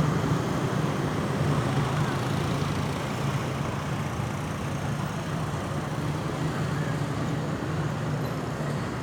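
Steady road traffic noise with a low, even engine hum; no siren is sounding.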